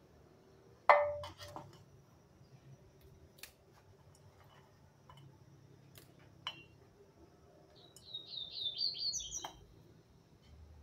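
A sharp clink about a second in, followed by a few light clicks and taps as charcoal pieces and small pots are handled. Near the end a bird sings a quick run of high chirps.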